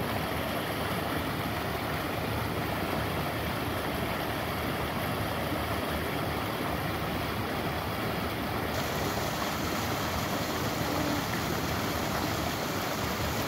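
Steady rushing of creek water flowing past the bank.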